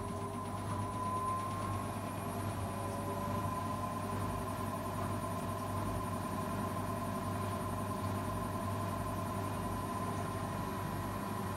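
Zanussi integrated washing machine in its intermediate spin at about 800 rpm, the drum turning at speed with a steady motor whine and hum. The whine rises slightly in the first couple of seconds, then holds steady.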